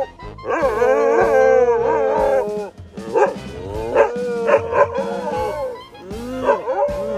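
Two dogs howling together in long, wavering calls, the tan dog's howl hoarse and raspy, over background music.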